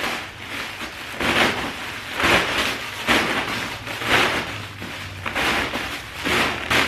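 Plastic rustling and crinkling in repeated surges about once a second: poly mailer packages being pushed and packed into a large plastic bag.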